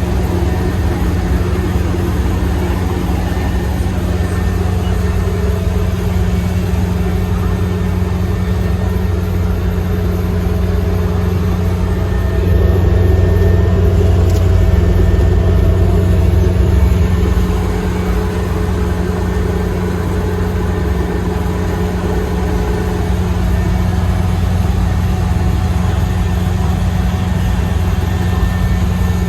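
Rice harvester running steadily with a continuous engine drone, growing louder for about five seconds in the middle.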